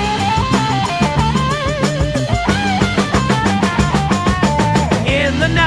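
Instrumental passage of a psychedelic rock song: a lead electric guitar plays a bending, wavering melody over bass and a steadily driving drum kit.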